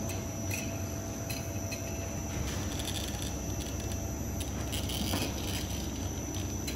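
Hollow-pipe forming machine running steadily, its motor humming and steel rollers turning as a thin metal strip feeds through, with a few light clicks.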